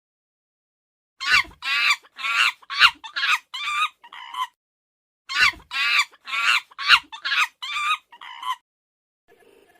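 Chicken clucking in two bouts of about seven short, quick calls each, the last call of each bout fainter.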